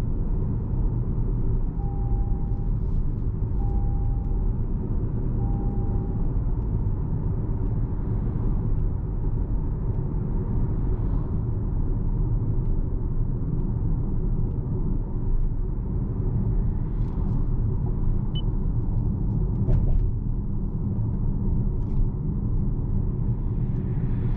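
Steady low road and drivetrain rumble inside a 2026 Toyota RAV4 hybrid on the move. Three short electronic beeps about two seconds apart come near the start.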